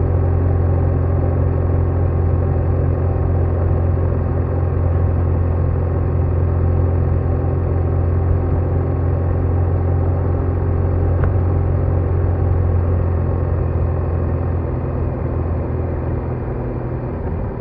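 BMW R1200R's boxer twin engine running steadily while the motorcycle is under way, with a deep, even engine note. It eases off slightly near the end.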